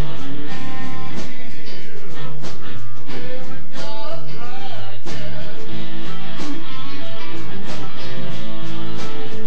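Live electric blues band playing: a Telecaster lead guitar over bass and drums, with a steady beat and notes that bend in pitch about four seconds in.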